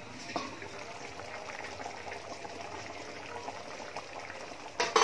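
Coconut milk simmering and bubbling in an uncovered wok, a steady crackle of small pops. The wok's lid clinks as it is lifted off about half a second in, and a loud metallic clatter comes near the end.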